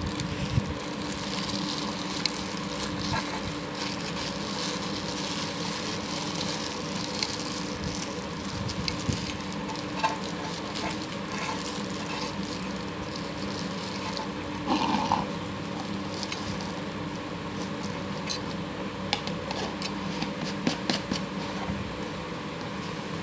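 Clear plastic bag crinkling and rustling as it is handled and wrapped around a pump mechanical seal, then scattered clicks and knocks as a plastic container and its screw-on lid are handled. A steady hum runs underneath.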